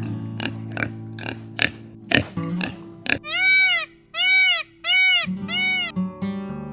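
Animal calls over background music: a run of short pulses in the first few seconds, then four separate calls each rising and falling in pitch.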